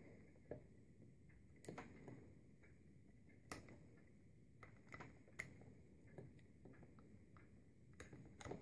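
Small scissors snipping the cord lacing off the copper windings of an e-bike hub motor's stator: quiet, sharp clicks at irregular intervals, about one or two a second.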